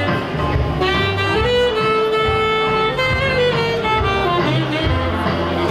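Live jazz combo: an alto saxophone plays the melody in long held, sliding notes over a plucked upright bass and keyboard.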